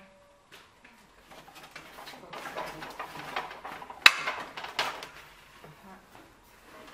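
Bamboo dish rack knocking and creaking as it is lifted and shifted, with the plates and metal tray on it clattering. The sharpest knock comes about four seconds in, with a smaller one just after.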